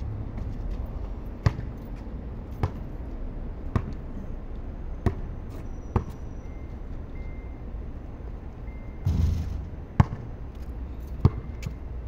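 Basketball bouncing on a hard outdoor court as a player dribbles: single sharp bounces about once a second over a steady low rumble. A short rush of noise about nine seconds in.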